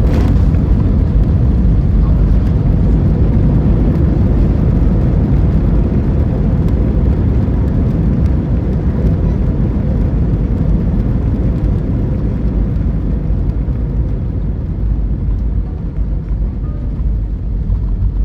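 Airbus A320-232 cabin noise: a loud, steady low rumble of engines and airflow with a faint steady tone, easing off slightly near the end.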